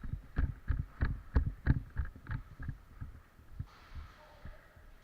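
Quick, regular thuds, about three a second, typical of hurried footsteps heard from a body-worn camera. The thuds stop a little under three seconds in and give way to a faint rustling hiss.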